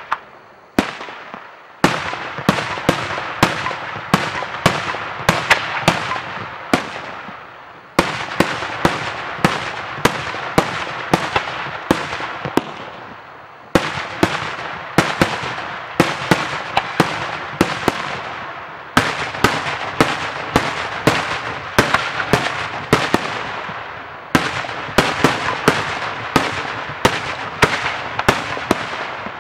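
Daytime fireworks display: aerial shells bursting overhead in rapid volleys of sharp bangs, several a second. The volleys come in waves about every five or six seconds, each starting with a sudden jump in loudness over a continuous crackling din that fades before the next.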